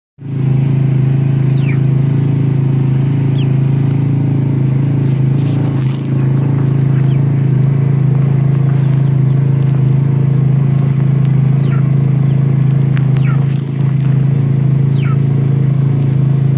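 A steady low hum, like a motor running, fills the background. Over it come several short peeps that fall in pitch, from young Barred Rock, Rhode Island Red and sex-link chickens.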